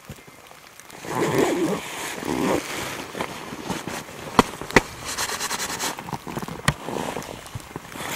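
Gloves and a nylon shell jacket rustling and crackling close to the microphone as a snow-study field notebook is handled, with three sharp clicks near the middle.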